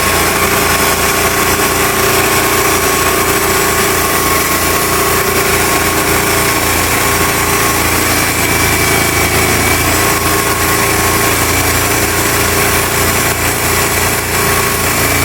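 Norwood portable band sawmill running steadily, its engine and band blade cutting through a white oak log.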